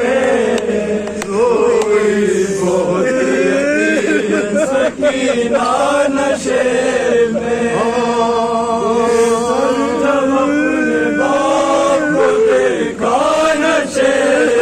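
A male reciter sings a noha, a Shia mourning lament, through a microphone in a long, wavering melody. Other men's voices join in with him.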